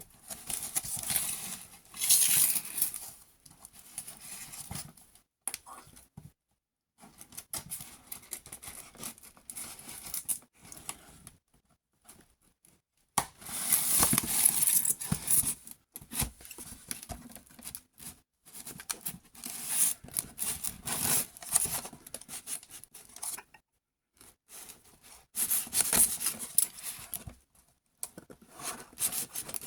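Action-figure packaging being opened by hand: plastic and cardboard crinkling, tearing and rustling in irregular bursts, with short pauses in between.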